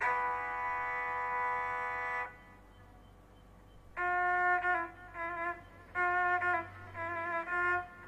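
Music: one slow unaccompanied melodic line. A long held note, a pause of more than a second, then short phrases with slides between the notes.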